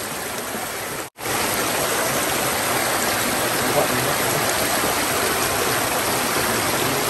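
Shallow rocky mountain stream rushing and splashing over stones in a small cascade, a steady full hiss of water. It cuts out for an instant about a second in and comes back louder.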